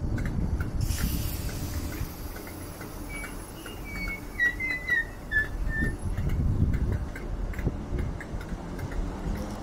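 Merseyrail electric train moving slowly along the platform with a low, steady rumble. A few short high chirps come about halfway through.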